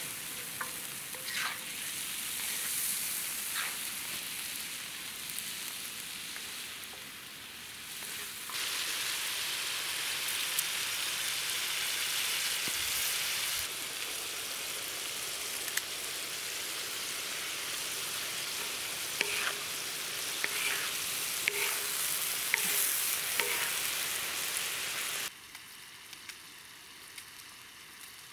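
Meat sizzling and frying in a hot steel disc pan over a wood fire: a steady, hissing sizzle with occasional clicks and scrapes of the spatula and knife. The sizzle turns suddenly quieter near the end.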